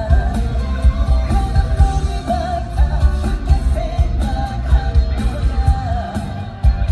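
Live pop-rock song played loud over an arena sound system, with a lead vocal singing the melody over a heavy, pulsing bass.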